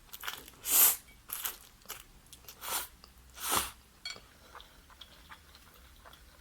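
Close-up crunching of crispy fried chicken being bitten and chewed: four or five loud crisp crunches in the first four seconds, then softer wet chewing clicks.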